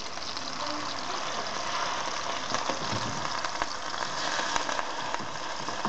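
Hake mince cutlets sizzling in hot oil in a frying pan, a steady hiss, with a few light clicks of a fork turning them.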